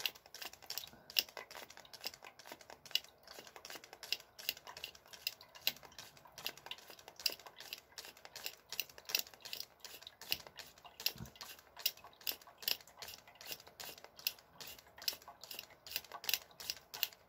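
Hand-pumped ear-irrigation sprayer working steadily, a quick run of clicking squirts, about four a second, as water is flushed into an ear packed with wax and runs off into the catch basin.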